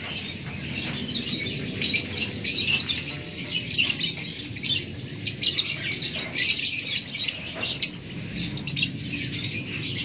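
A cageful of lovebirds chattering: many high-pitched chirps and squeaks overlapping in a continuous, busy stream.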